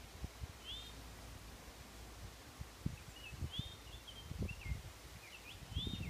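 Wind buffeting the microphone in low, irregular gusts. A songbird sings short, high chirping phrases about three times, about a second in, in the middle and near the end.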